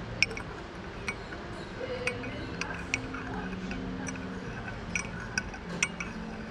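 Metal teaspoon clinking against the inside of a ceramic teacup as tea is stirred: about eight light, irregular clinks over several seconds.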